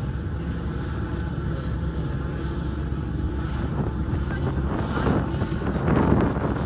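An engine running steadily, with a louder rush of noise building near the end.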